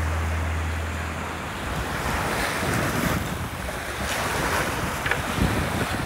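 Water lapping and splashing around a sea kayak, with wind buffeting the microphone. Background music fades out about a second in.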